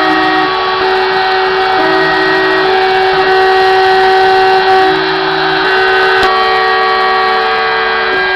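Stepcraft 600 CNC router engraving PCB isolation tracks: the spindle runs steadily while the axis motors whine in steady tones that jump to new pitches every second or so as the machine changes direction.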